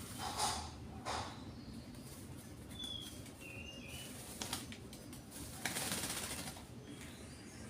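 Oriental magpie-robin (kacer) bathing: bursts of wing-flapping and splashing water, the longest near the end. Two short high chirps come about three seconds in.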